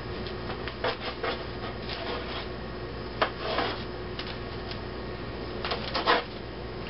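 A serrated knife saws through soft baked oopsie rolls and scrapes on parchment paper over a sheet pan, in short scratchy strokes, with a sharp tap a little past three seconds.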